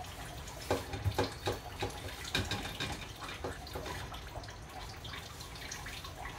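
Kitchen clatter from food preparation: a run of light clicks and knocks from utensils and dishes in the first half, then only a steady background hiss.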